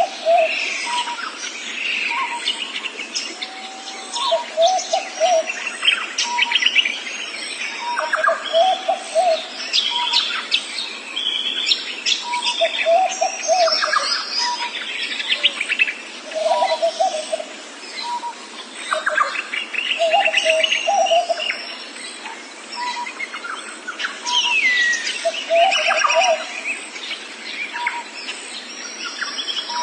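Several birds calling and chirping at once, with a low call of a few quick notes repeating about every four seconds among higher chirps and whistles.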